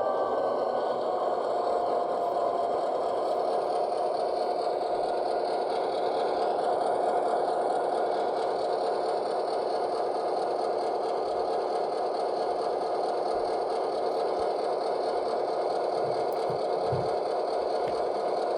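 Sound decoder in an HO scale Walthers GP7 model locomotive playing a diesel engine idling steadily through a newly fitted scale speaker, just after start-up, with a constant hum.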